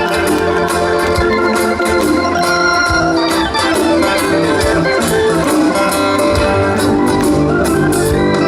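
Live band music led by an organ-like keyboard holding sustained chords, with drums keeping time underneath.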